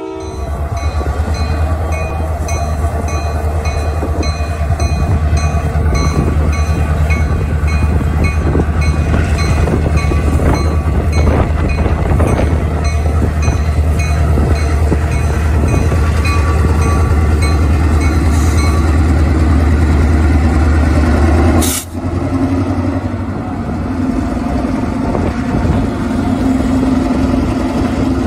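Diesel-electric locomotive engine running with a deep steady rumble as the train rolls past, with a bell ringing steadily through roughly the first half. Near two-thirds of the way through the sound breaks off abruptly and the engine's hum picks up again.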